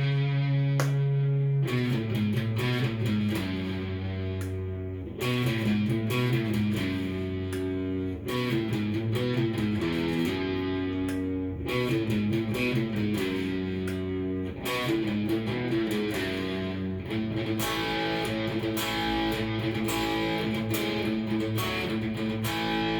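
Korean-made 1999 Cort S series electric guitar played through a Fender amp with no effects pedals, strumming and picking chords that change every second or two.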